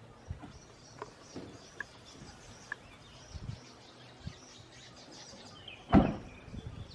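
Birds chirping faintly in the background. About six seconds in comes a single loud thump: the rear tailgate of the hearse being shut.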